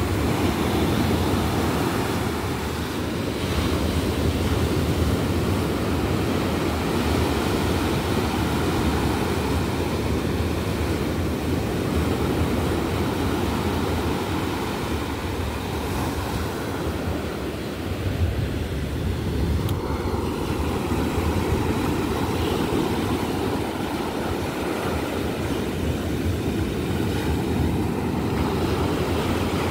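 Ocean surf breaking and washing up a sandy beach, a steady rush of waves with gentle swells in loudness.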